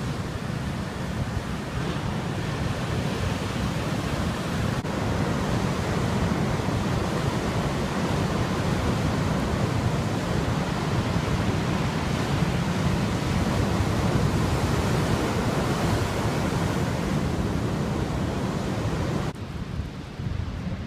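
Heavy storm surf breaking on rocks and a harbour jetty, a steady dense wash of sea noise with wind rumbling on the microphone. About a second and a half before the end it drops suddenly to quieter wind.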